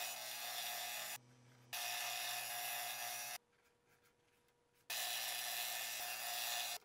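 Benchtop scroll saw running and cutting thin plywood: a steady motor hum with the blade's rasping cut over it. It comes in three stretches of a second and a half to two seconds, each cutting off abruptly.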